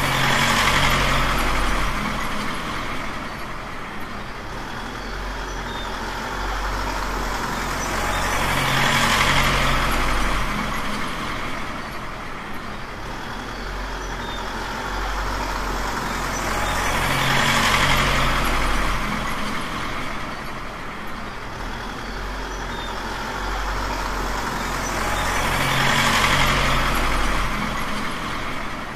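Truck engine sound, running steadily and swelling in a hiss-edged rise about every eight to nine seconds, four times over, as a repeating loop.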